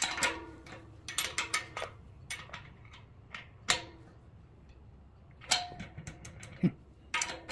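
Metal tools and hardware clinking and tapping against the steel wheel brackets of an air compressor tank during assembly. The clinks come in irregular short clusters, each ringing briefly.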